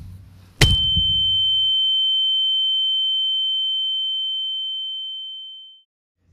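A single sharp hit, then a steady high-pitched ringing tone that slowly fades out over about five seconds: the ear-ringing sound effect of someone knocked out by a baseball bat.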